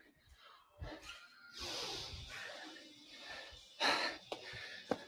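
Heavy breathing from people straining through push-ups, with forceful exhales; the loudest is just before four seconds in. A sharp knock comes near the end.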